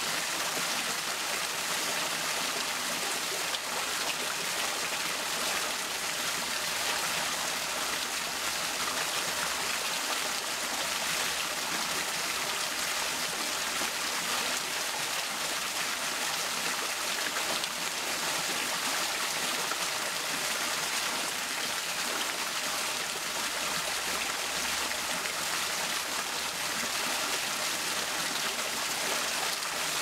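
Small rock waterfall: thin streams of water trickling and splashing steadily down stone, an even hiss of falling water with little deep rumble.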